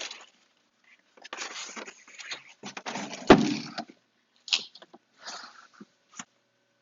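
Packaging being handled: rustling and scraping of box material, with one loud knock about a third of the way in and a few lighter clicks after it.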